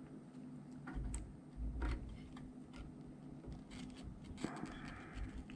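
Pliers and a screwdriver tip clicking and scraping against a Bakelite capacitor block as its softened tar filling is picked out. Scattered light clicks, a couple of low bumps about one and two seconds in, and a scratchy scrape about four and a half seconds in, over a faint steady hum.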